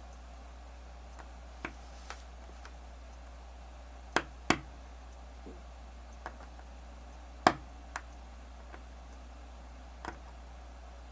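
Sharp small metallic clicks and taps, a few seconds apart and irregular, from tiny watch bracelet parts and tools being worked back together. The loudest come about four seconds in and again about seven seconds in. A steady low hum runs underneath.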